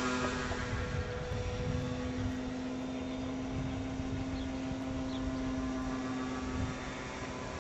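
Radio-controlled foam flying wing's electric motor and propeller droning in flight: a steady hum with overtones, loudest at the start as it passes close, then holding steady.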